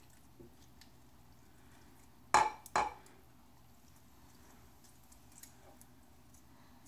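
Two sharp clinks about half a second apart, near the middle, from a glass jar of pepperoncini peppers and the fork used to lift them out over a slow cooker's crock. Otherwise only faint small clicks and taps.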